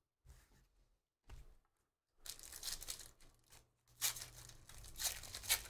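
Foil trading-card pack torn open by hand, the wrapper tearing and crinkling from about two seconds in, loudest about four seconds in.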